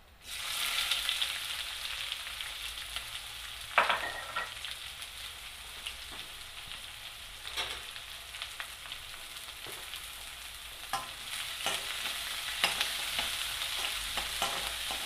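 Chopped onions dropped into hot oil in a metal pan, starting a sudden sizzle. The onions then fry with a steady sizzle while a spoon stirs them, knocking and scraping against the pan now and then.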